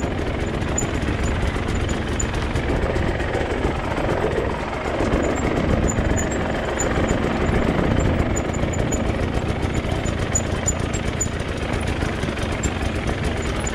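Off-road motorcycle engine running and revving up and down.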